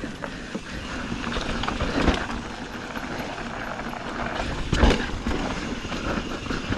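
Mountain bike running down a rough dirt trail: a steady rumble of tyres and rattling bike. There is a knock about two seconds in and a louder one near five seconds, as the wheels hit rocks or features.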